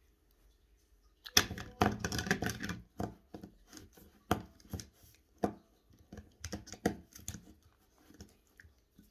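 Toys and slime being handled: near silence, then a dense clatter and rustle starting about a second and a half in, followed by scattered sharp taps and clicks.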